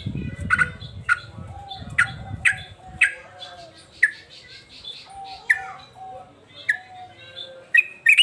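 Excited male yellow-vented bulbul (trucukan) giving sharp, short downward-sweeping calls, one or two a second, breaking into a rapid chattering burst near the end. A low rumble lies under the first few seconds.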